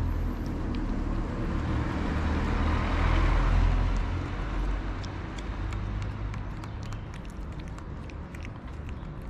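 A vehicle passing on a nearby street: a low rumble that swells to its loudest about three to four seconds in, then fades away. Small clicks of kittens chewing wet cat food close by come through more plainly as it fades.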